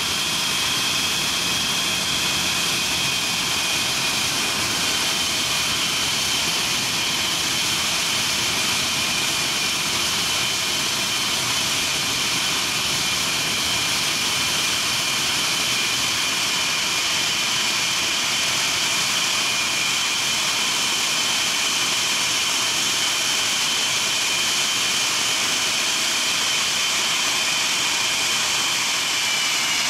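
English Electric Lightning's twin Rolls-Royce Avon turbojets running steadily on a ground run: a loud, even rush with a high-pitched two-tone whine. Near the end the whine starts to drop in pitch.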